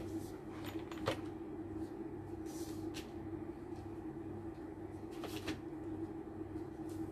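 A steady low hum with a few light clicks and knocks, the sharpest about a second in and a couple more around five seconds in.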